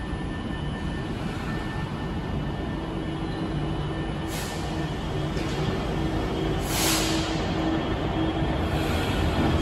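Class 66 diesel locomotive's two-stroke V12 engine running with a steady drone as it approaches light engine, slowly growing louder. Two short bursts of hiss about four and seven seconds in.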